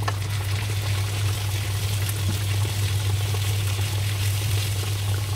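Minced pork sizzling in a frying pan as it is stirred, a steady even hiss over a constant low hum.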